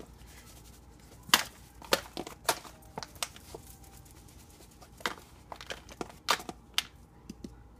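Scattered light clicks, taps and rustles of a plastic food tub being handled while zucchini sticks are tossed in flour, with one sharper click about a second in.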